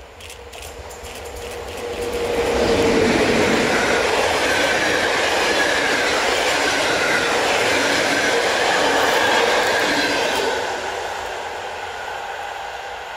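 PKP class EP07 electric locomotive and its passenger coaches passing at speed, wheels running on the rails. The sound builds over the first two seconds, stays loud, then fades from about ten seconds in as the train draws away.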